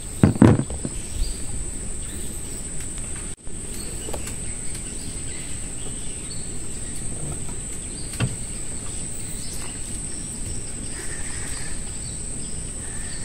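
Insects droning steadily at one high pitch over a low background hiss. There are a few short knocks near the start and one about eight seconds in.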